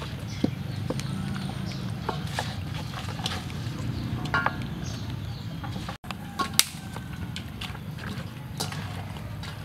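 Wet squelching and slapping of hands working marinade into raw whole chickens in a steel bowl, heard as irregular short smacks and clicks over a steady low hum.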